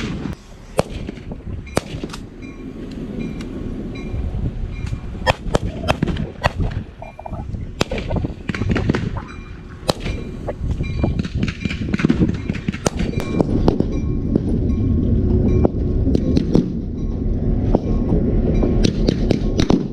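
Skirmish gunfire, many sharp irregular shots from reenactors' blank-firing rifles, over the low rumble of a diesel-electric locomotive that grows louder toward the end as the train approaches.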